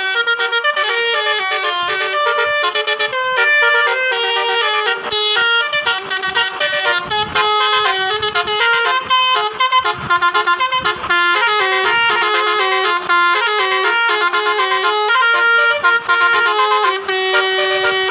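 Basuri musical air horn on a bus playing a tune: a quick run of changing horn notes, several sounding together, with a few short breaks.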